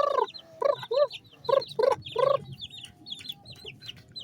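Chickens clucking, about five short calls in the first couple of seconds, over constant high peeping of baby chicks.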